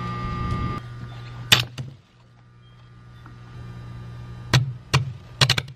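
Steady electrical hum, which fades out a little after two seconds and slowly builds back, with a sharp snap about one and a half seconds in and a quick run of sharp snaps near the end.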